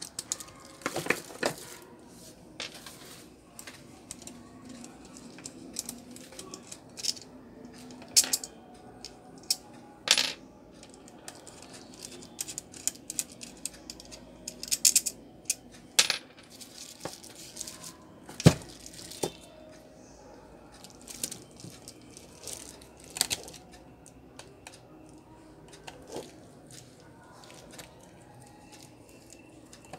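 Screwdriver and small metal parts clinking and tapping against a stand fan's motor and plastic gear housing as it is taken apart: scattered sharp clicks and clinks at irregular intervals, with one louder knock a little past halfway.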